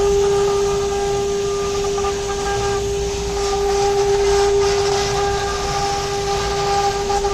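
CNC router's 6 kW air-cooled spindle running at speed: a steady, unchanging whine over a constant hiss.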